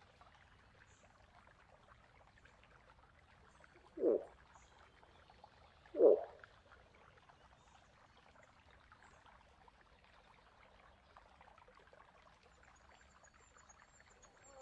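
Two short moose grunts about two seconds apart, the second louder, over a faint hiss.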